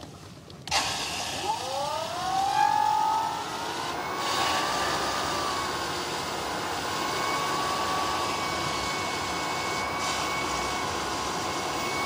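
BWD5-40 stainless steel variable-speed booster pump kicking in under demand. Its motor whine rises over a couple of seconds as the drive spools up, then the pump runs steadily with water rushing through the pipework, holding a 4.5 bar setpoint.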